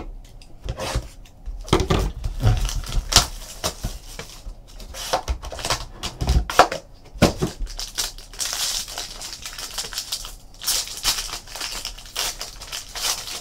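Cards and cardboard boxes being handled on a table, a run of light clicks and taps, then from about eight seconds in the crinkling of a foil trading-card pack wrapper being handled and opened.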